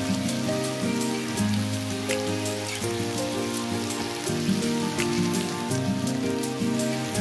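Steady rain hiss with scattered drop ticks, over soft music of held notes that change every second or so.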